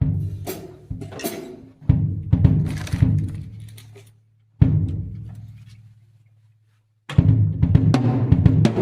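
Drum kit played during a sound check: loose fills and single hits, one low drum ringing out and fading for a couple of seconds, then a steady beat on the full kit starting about seven seconds in.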